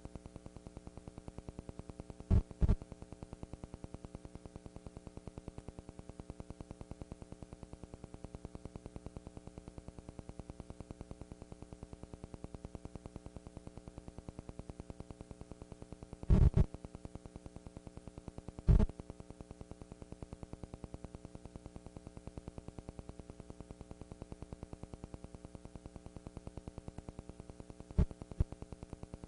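Steady electrical buzz with many overtones, pulsing quickly and evenly, in place of the band's sound. Loud short clicks cut in: a pair a little after two seconds in, a cluster about halfway, one shortly after, and a couple near the end.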